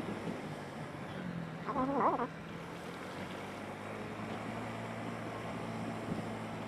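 Motorbike engine running steadily at low riding speed, with wind noise on the microphone. A brief pitched call rises over it about two seconds in.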